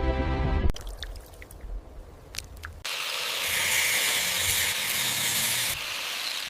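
Background music cuts off under a second in, followed by a few faint clicks, then a loud steady spraying hiss from a workshop tool for about three seconds, easing a little near the end.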